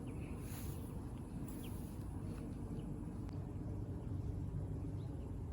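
Quiet outdoor garden ambience: a steady low rumble with a few faint, short chirps.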